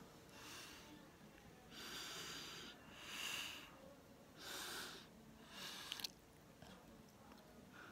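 Noisy breathing close to the microphone: about five breaths in and out, each a short hiss under a second long, with a slight wheeze.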